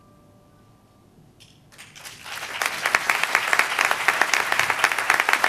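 The last note of a Yamaha keyboard fades out, and after a short hush an audience breaks into applause about two seconds in, building quickly to a steady, full round of clapping.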